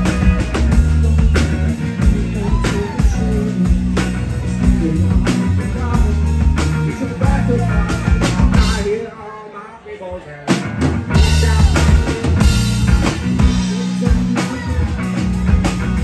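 Live rock band playing: electric guitar, electric bass and drum kit with a steady beat. About nine seconds in, the band stops together for about a second and a half, then comes back in at full level.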